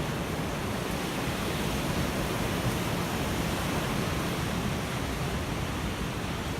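Ocean surf washing in a steady, continuous rush of breaking waves, swelling slightly midway.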